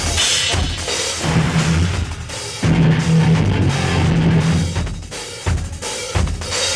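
Live instrumental metal band playing loud, with the drum kit, bass drum and cymbals to the fore over held low notes, broken by several short stops and hits.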